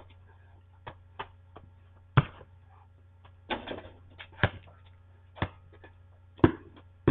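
Basketball thumping against the ground and the hoop's backboard and rim: a string of sharp knocks about a second apart, over a steady low electrical hum.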